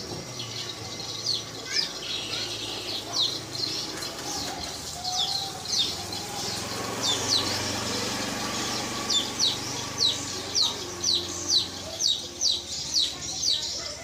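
A bird's calls used as a calling sound: short, high, downward-sweeping notes repeated over and over, settling into a regular run of about two a second in the second half.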